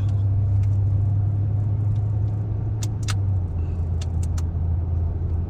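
An engine drones low and steady, its pitch dropping slightly about halfway through, with a few sharp clicks near the middle.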